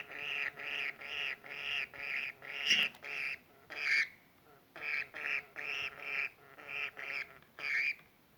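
Budgerigar repeating a short, harsh call over and over, about two or three calls a second, with a brief pause about four seconds in before the series resumes and stops near the end.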